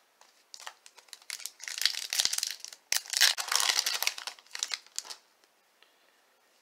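Foil wrapper of a trading-card pack being torn open and crinkled, with crackling from about half a second in that peaks in the middle and stops about five seconds in.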